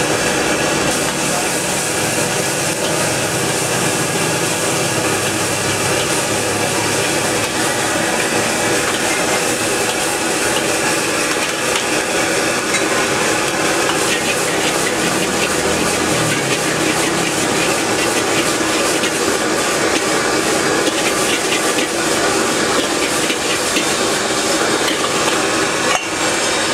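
Stir-frying in a wok over a gas burner: a metal ladle scraping and clinking against the wok while vegetables sizzle, over the steady rush of the burner flame.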